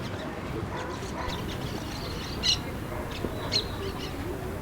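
A bird giving two short, sharp calls about a second apart, over steady background noise.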